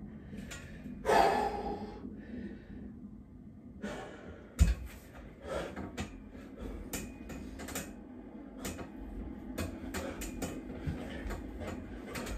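A man breathing hard while doing dips on a steel dip station: a loud sharp exhale about a second in, a single heavy thump about four and a half seconds in, then a run of light clicks and knocks from the bars as he dips.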